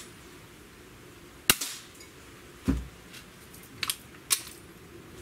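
Beeman R7 spring-piston breakbarrel air rifle firing once with a sharp crack about a second and a half in. A dull thump follows about a second later, then two clicks as the barrel is broken open to cock it.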